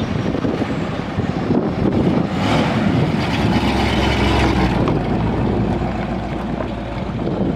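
Mid-1950s Buick station wagon driving past, its engine running with a low rumble that grows loudest as it passes close about three to four seconds in, then eases off.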